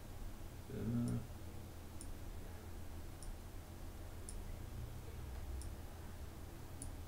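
Faint computer mouse clicks, about one a second, over a low steady hum, with a brief low voiced sound about a second in.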